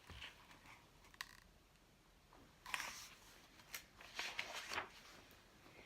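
Picture-book pages being turned: faint paper rustles and a few light clicks.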